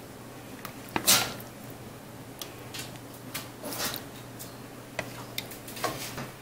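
Gumbo being ladled from a stainless steel stockpot into a ceramic bowl: scattered light clicks and knocks of a plastic ladle against the pot and bowl, with a few short soft pours, the loudest about a second in. A steady low hum runs underneath.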